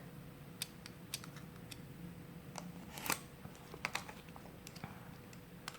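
Faint, irregular clicks and taps of fingers handling and opening the cardboard and plastic packaging of a phone cover, about a dozen spread unevenly.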